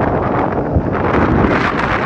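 Strong wind rushing and buffeting over the microphone, a loud steady rumbling roar of airflow while soaring a miniwing in strong winds.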